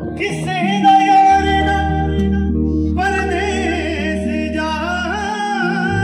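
Live band playing a song: sustained keyboard chords, bass and guitar under a wavering, ornamented lead melody. The lead drops out briefly about two and a half seconds in.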